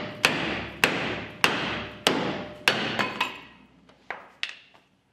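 Large hammer pounding a steel C-notch section into the rear frame rail of a Chevy C20 truck, driving it into place. Six heavy ringing blows come about every 0.6 s, then two lighter taps near the end.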